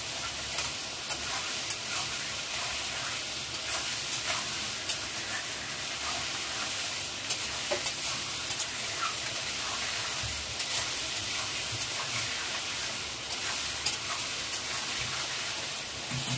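Chopped vegetables sizzling in hot oil in a metal kadhai as they are stir-fried with a spatula: a steady frying hiss with frequent clicks and scrapes of the spatula against the pan.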